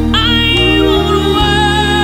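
Background music: a slow Christian song, here in an instrumental stretch between sung lines, with held notes over a steady bass.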